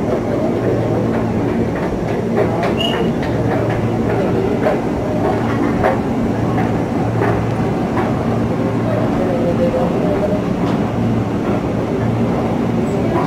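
Steady low mechanical hum and rumble of commuter-rail station machinery, with scattered light clicks and knocks.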